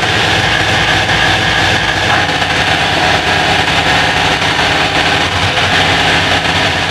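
Hardcore electronic dance music played by a DJ over a club sound system: a loud, dense, continuous wall of sound with a heavy low end.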